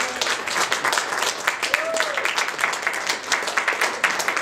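Wedding guests applauding the kiss: many hands clapping quickly and irregularly.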